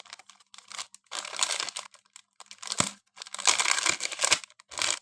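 Plastic packaging of an LED strip reel crinkling as it is handled, in irregular bursts, with a sharp click near the middle.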